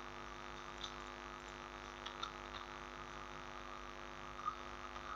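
Steady electrical mains hum picked up by the microphone, with a few faint short clicks from a computer mouse.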